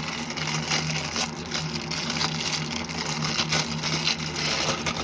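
Toy packaging being handled: irregular crinkling, rustling and small clicks as figure accessories are taken out, over a steady low hum.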